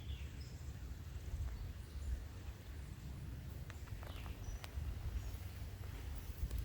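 A hiker's footsteps along a trail over a steady low rumble on the microphone, with a few sharp clicks around the middle and faint, short, high bird chirps.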